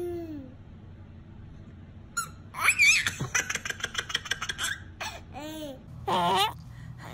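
Babies laughing: a toddler's rapid belly laugh, a quick run of ha-ha sounds lasting about two seconds near the middle, then an infant's short laughing squeals near the end.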